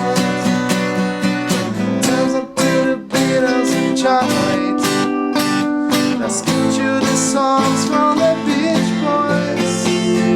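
A small rock band playing live: strummed guitars over a steady drum beat, with a brief break in the playing between about two and a half and three seconds in.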